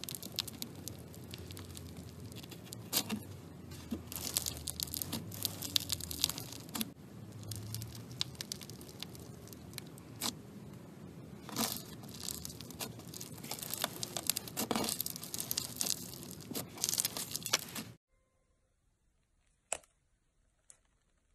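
Green floam slime, packed with foam beads, crackling and popping as fingers press and knead it, with louder crackles every second or two. The crackling cuts off suddenly about three-quarters of the way in, leaving near silence with two faint clicks.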